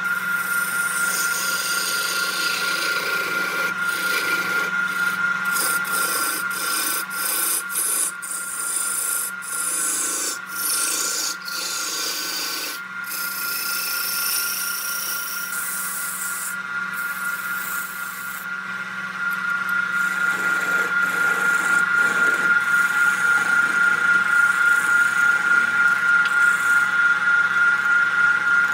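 Wood lathe running with a steady motor whine while a hand-held turning tool scrapes and cuts the spinning wood, with many brief breaks. In the last third the scraping pulses evenly, a few times a second.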